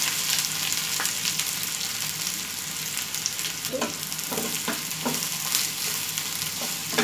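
Sliced onions sizzling in hot oil in a frying pan. About four seconds in, a spatula scrapes and knocks against the pan several times as the onions are stirred.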